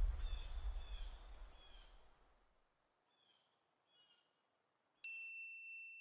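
Logo intro sound effects: a low rumble fading away over the first two seconds under faint bird chirps, then a near-silent gap. Near the end a sudden steady high beep sounds.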